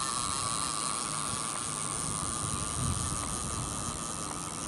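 Multiplier fishing reel being wound in steadily with a fish on the line: a continuous whirring hum with hiss.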